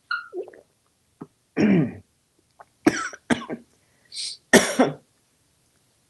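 A person coughing in short fits, with a throat-clearing sound before the first coughs, because coffee went down the wrong pipe.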